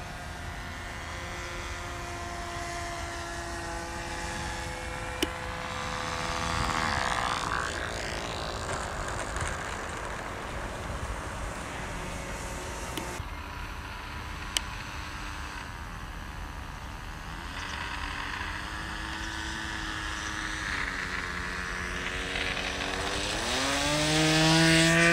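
Radio-controlled model airplane's engine running at steady, partly throttled-back power as the plane flies low over the field, with wind on the microphone. Near the end the engine revs up sharply, pitch and loudness rising, as the plane rolls on the grass and takes off again in a touch-and-go.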